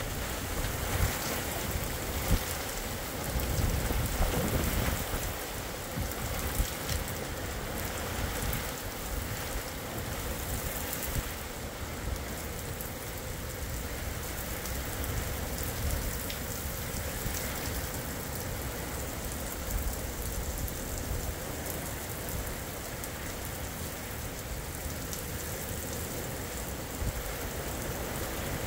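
Torrential rain pouring steadily onto the pavement and roofs in a thunderstorm, with a low rumble in the first few seconds.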